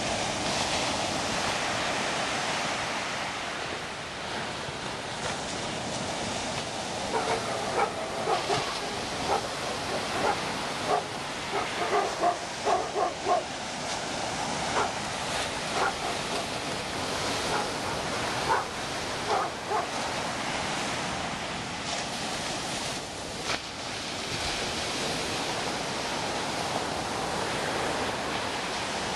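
Small ocean waves breaking and washing up the beach in a steady wash of surf. Through the middle stretch a dog barks many times in short calls.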